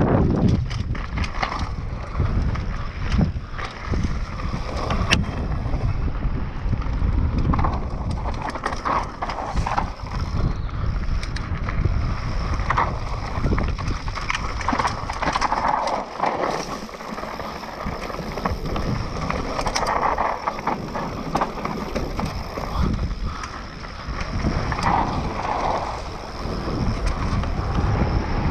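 Mountain bike ridden fast downhill over rocky ground and then dirt singletrack: wind noise on the microphone, tyres on dirt and stone, and frequent rattles and knocks from the bike over the rough trail.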